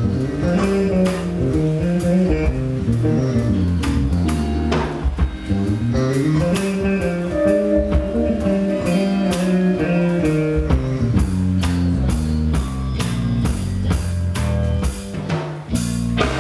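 Live instrumental band jam: an electric bass plays moving melodic runs over a drum kit, with guitar in the mix.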